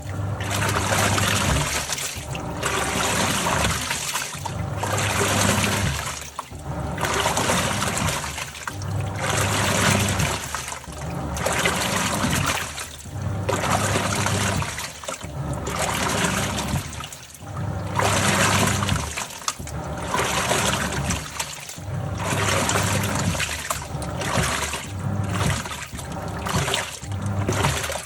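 Top-loading washing machine agitating a load: water churns and sloshes in surges about every two seconds as the pulsator turns one way then the other, each surge carrying a low motor hum.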